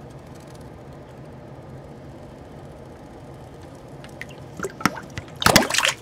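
Water splashing as a common snapping turtle lunges in its tank: a few sharp splashes from about four seconds in, then a loud burst of splashing and sloshing near the end, over a faint steady hum.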